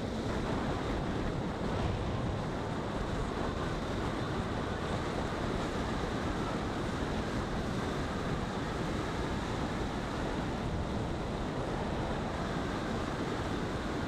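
Steady rush of tyre and wind noise from a car driving along a worn asphalt road.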